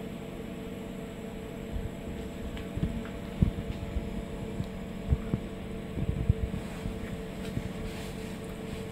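Steady hum with several constant tones from a CNC mill, its Z axis slowly lowering a drill bit toward a tool-length sensor to measure the tool. A few soft low knocks come and go in the middle.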